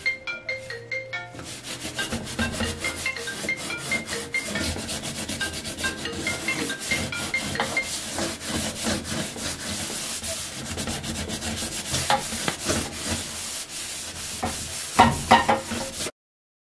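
Sponge scrubbing a greasy stainless-steel stovetop with baking soda: a fast, continuous run of rubbing strokes that cuts off suddenly near the end. Light melodic background music plays underneath.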